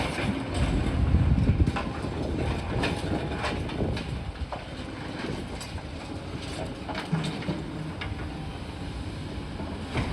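Excavators working a demolition rubble pile: heavy diesel rumble with repeated knocks and clatter of broken concrete being scooped and dropped, loudest in the first couple of seconds.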